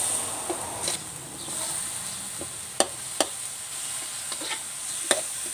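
Sator beans and minced pork sizzling as they are stir-fried in a wok, with a steady frying hiss. Sharp clinks of a metal spatula striking the wok sound now and then, the loudest a pair about three seconds in and another near the end.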